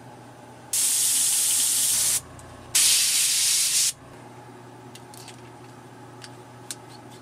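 A gravity-feed airbrush spraying: two loud bursts of hissing air, the first about a second and a half long and the second about a second long, with a short break between them.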